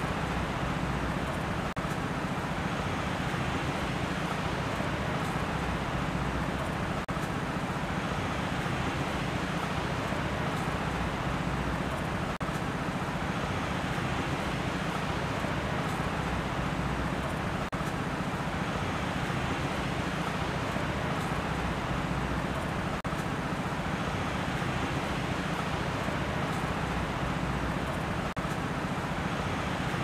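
Steady outdoor ambience: an even rushing noise with a low rumble underneath, unchanging throughout, with no distinct events.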